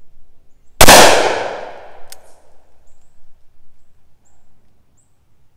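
A single .357 Magnum shot from a 2.5-inch Smith & Wesson Combat Magnum (Model 19) revolver firing a 158-grain load, about a second in; the loud report echoes and dies away over about a second. A sharp click follows about a second after the shot.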